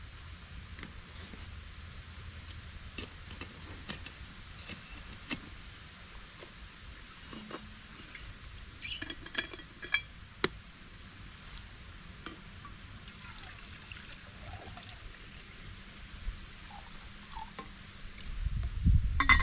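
Camp cooking gear being handled for making tea: scattered light clicks and metal clinks, with a cluster of sharper clinks about halfway through and a louder low rumble near the end.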